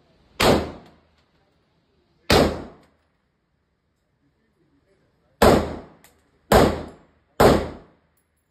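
Five gunshots fired at a slow, uneven pace, the last three closer together; each sharp crack dies away over about half a second in the enclosed range.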